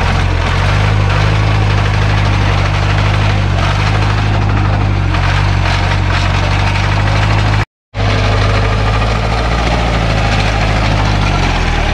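Off-road jeep's engine running hard and steady as it climbs a steep, rocky track, with the note dropping slightly near the end. The sound cuts out completely for a split second about two-thirds of the way through.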